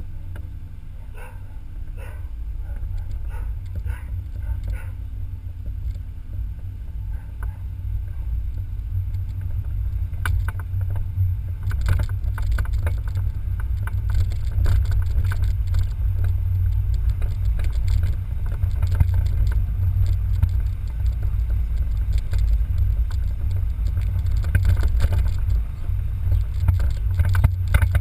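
BMW Z3 roadster driving on town streets, heard from a camera mounted outside on its nose: a steady low rumble of road and wind noise that grows louder as the car gathers speed, with scattered rattles and clicks.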